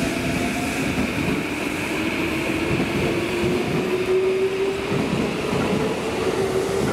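Electric commuter train of the Tokyo Metro Tozai Line pulling away from the station: the motors' whine rises steadily in pitch as it accelerates, over the rumble of wheels on the rails.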